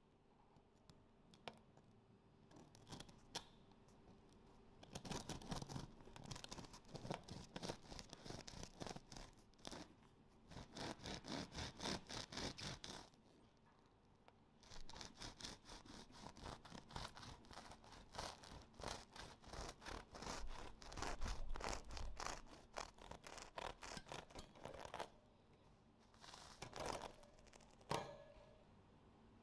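Serrated bread knife sawing back and forth through a freshly baked loaf of white bread, its crust still crisp from the oven, in rapid rasping strokes. The sawing comes in two long stretches, with a couple of short strokes near the end.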